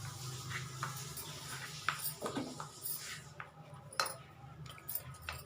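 A spoon clinking and scraping against a mixing bowl of flour as salt is added, with sharper clinks about two and four seconds in, over a steady low hum.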